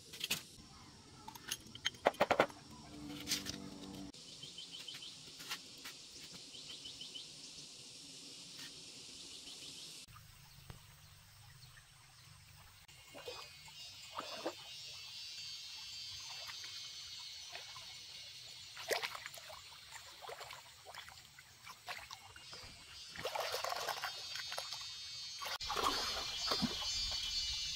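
Short clicks and knocks of a screwdriver working on a motorbike engine, then water sloshing and splashing as legs wade through a shallow stream, the splashes loudest near the end. A steady high-pitched insect buzz runs underneath.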